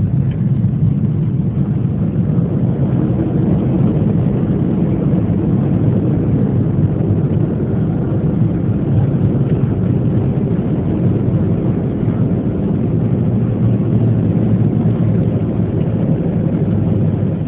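Steady low roar heard inside a jet airliner's cabin as it rolls along the runway after landing: engine noise and the rumble of the wheels on the pavement.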